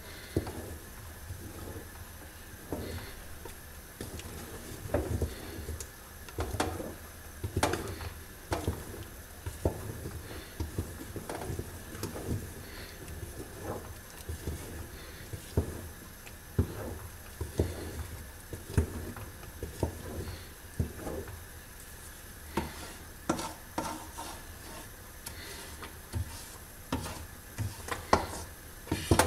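Wooden spoon stirring a thick sesame-and-hazelnut paste (zrir) in an aluminium pot, scraping and knocking against the pot wall irregularly, about once a second.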